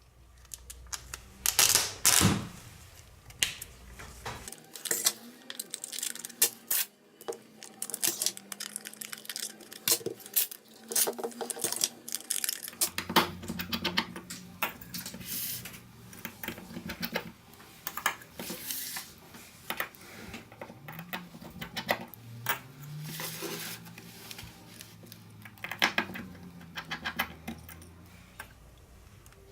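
Irregular clicks, taps and clinks of small hard objects: tools and parts being handled and set down during an iPad repair.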